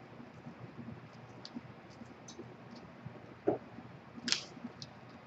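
Fingers pressing and levelling a crumbly granola-style cookie dough in a metal sheet pan: faint scattered clicks and scratches, with a knock about three and a half seconds in and a short scrape soon after.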